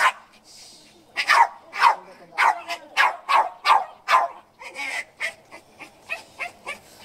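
Small dog barking repeatedly in short, high yips, about two a second, each bark falling in pitch. The barks are loudest in a quick run after the first second and grow fainter towards the end.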